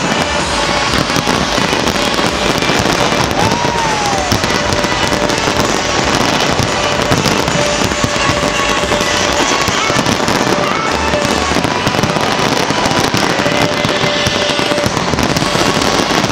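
A dense, unbroken barrage of firework shells bursting and crackling from a large display, with music playing underneath.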